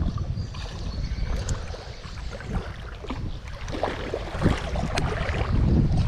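Wind rumbling on the microphone over splashing water as a hooked smallmouth bass thrashes at the surface, with a spinning reel being cranked and scattered sharp clicks.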